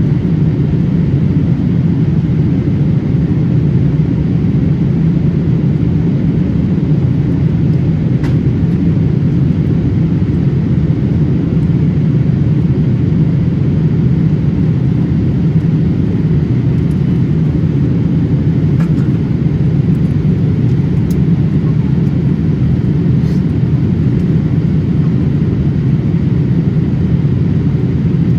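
Steady in-flight cabin noise inside a Boeing 787-8 airliner: an unchanging, low-pitched drone of engines and airflow heard from a window seat.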